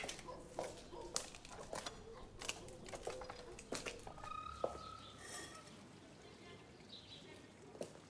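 Footsteps of hard-soled shoes on a cobbled passage, a little under two steps a second, fading after about four seconds. A few short, faint, high animal calls sound in the background around the middle.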